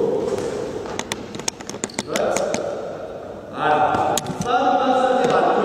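Basketball knocks in a sports hall, several sharp hits in quick succession as the ball is passed, caught and bounced, over a background of children's voices. About three and a half seconds in, a louder held, chant-like voice comes in and carries on.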